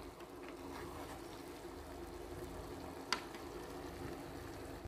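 Sugar syrup boiling with rasgulla balls in a saucepan, a faint steady bubbling hiss as the syrup soaks into the balls. There is a low steady hum underneath, and a single sharp click about three seconds in.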